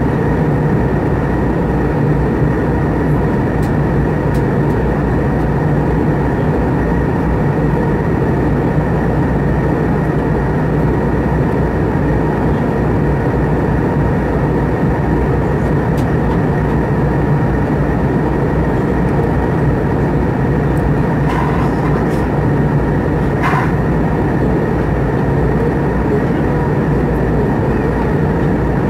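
Steady roar of an Airbus A320's jet engines and rushing air, heard inside the cabin at a window seat by the engine, with a steady whine in the roar. A couple of faint brief clicks come about three-quarters of the way through.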